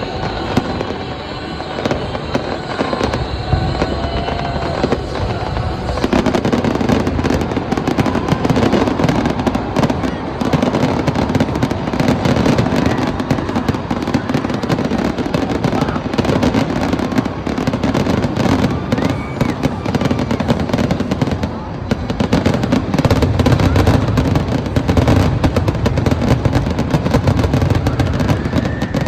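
A fireworks display going off, shells bursting and crackling one after another, the barrage becoming denser and louder about six seconds in.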